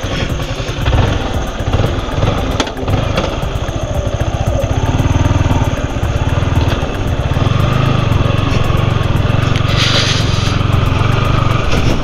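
Yamaha R15 V4's 155 cc single-cylinder engine running at low speed while the motorcycle is turned around and ridden off, with a few knocks in the first few seconds. The engine note settles into a steady hum from about five seconds in.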